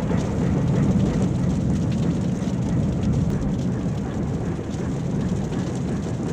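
Steady low rumble with faint scattered crackles above it, a sound effect from a vintage library.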